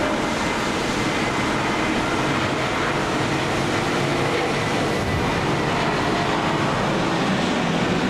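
Airbus A320neo's Pratt & Whitney PW1100G geared turbofans on approach, passing low overhead with gear down: a steady rush of engine and airflow noise with a faint high whine.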